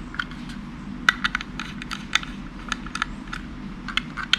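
Light, irregular metallic clicks and taps as small Torx mounting screws are fitted into the side of a 2.5-inch SSD with a star screwdriver.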